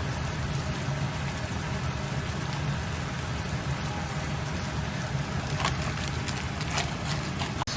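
Mutton, tomatoes and spices frying in a karahi, sizzling steadily over a low hum, with a few sharp taps in the last couple of seconds.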